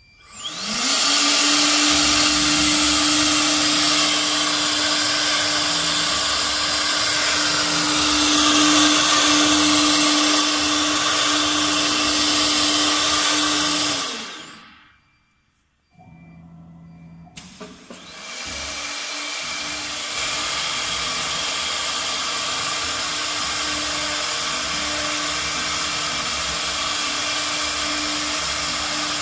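Spindle of a four-spindle cabinet-door CNC router spinning up with a rising whine and running at speed under a loud, hissing machining noise. About halfway through it winds down to near silence; a few seconds later a spindle spins up again and runs steadily.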